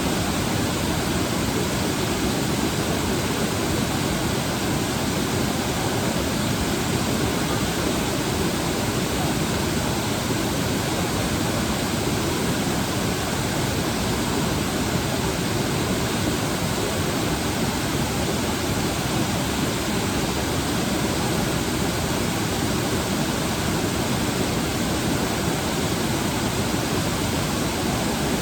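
Waterfall rushing, a steady, unbroken noise of falling water.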